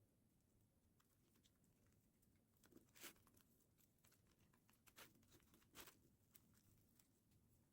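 Near silence with scattered faint clicks and light rustling, the clearest about three seconds in and again around five and six seconds.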